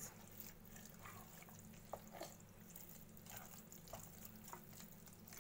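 Faint wet stirring of a thick rice-and-milk mixture with a wooden spoon in a metal pot, with a few soft taps, close to silence.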